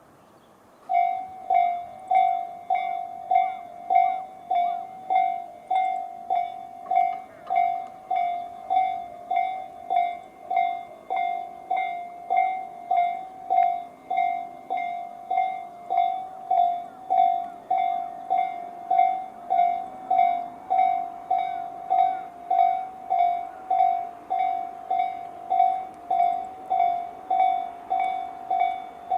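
Japanese railway level-crossing alarm, the electronic Tobu 'sound C' slow-tempo type, sounding from both sides of the crossing. It starts about a second in and keeps up a steady, evenly repeated ding, about one and a half strikes a second, warning of an approaching train.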